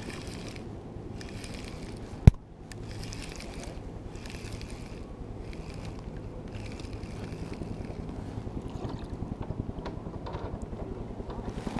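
Trout being fought and reeled in to a kayak: rod, reel and water noise with wind on the microphone. There is one sharp click about two seconds in, and the sound grows louder and more pulsing near the end as the fish comes up to the boat.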